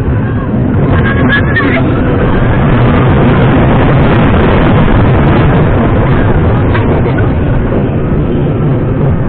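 Loud, steady rush of wind buffeting the microphone over the low rumble of a roller coaster train running along its track, with faint wavering voices about a second in.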